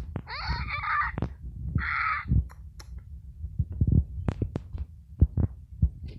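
Irregular low thuds from footsteps and the phone being handled while its holder walks over grass and pavement. Two short calls sound near the start, the first wavering in pitch, the second about two seconds in.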